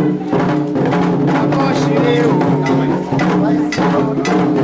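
Candomblé ritual music: hand drums beaten in a steady rhythm under a group singing.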